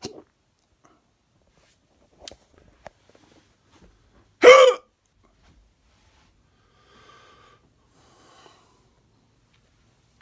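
A man's loud hiccup, a single short burst about four and a half seconds in, with a brief fainter sound at the start and a few small clicks before it.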